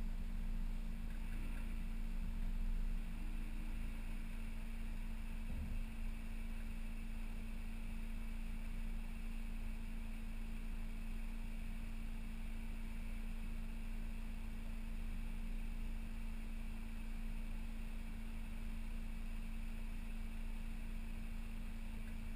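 Mazda MX-5 Miata roadster cruising with the top down: a steady engine hum with road and wind noise, heard from inside the open cabin. A single short knock about five and a half seconds in.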